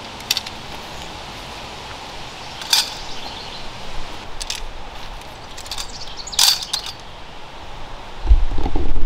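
A few sharp clicks and clacks, one to two seconds apart, as the collapsed cabin tent is being dismantled. About eight seconds in, a much louder rustle and rumble starts as the nylon tent fabric is pulled and bunched.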